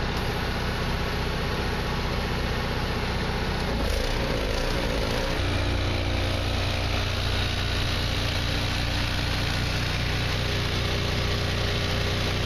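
Portable twin-tank electric air compressor running steadily while it feeds air through a hose into a bus tire; its hum changes about five seconds in, then holds steady.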